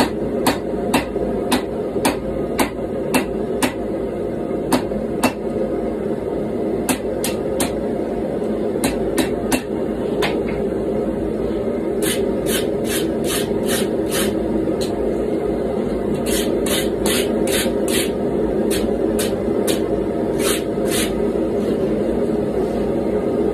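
Hand hammer striking a hot GoMai blade of wrought iron, nickel and 1095 steel on the anvil, about two to three blows a second, thinning out and stopping about ten seconds in. Then quick scrubbing strokes in bursts, a wire brush clearing scale off the hot blade, over the steady noise of the gas forge running.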